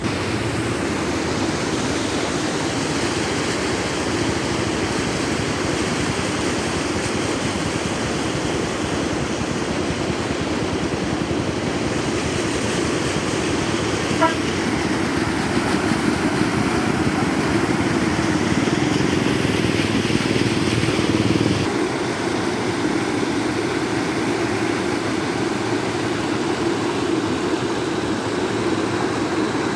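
A river raging in the rainy season: a steady, loud rush of fast, turbulent water.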